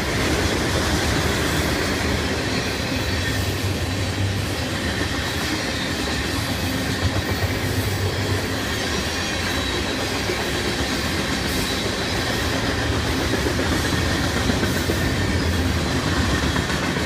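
Freight cars of a mixed freight train rolling past, a steady rumble with steel wheels clicking over the rail joints and some faint wheel squeal.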